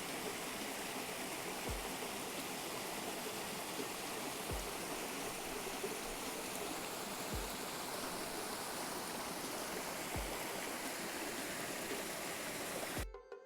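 River water rushing steadily. It cuts off suddenly near the end.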